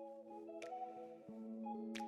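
Soft background music of gently sustained, overlapping notes, the chords shifting about every half second.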